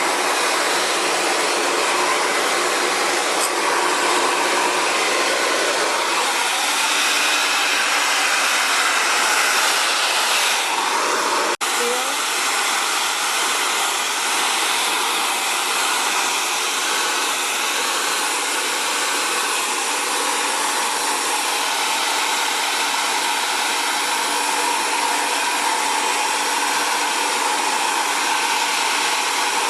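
Xtava Allure 2200-watt ionic ceramic hair dryer blowing steadily while drying curly hair, with a brief break in the sound about twelve seconds in.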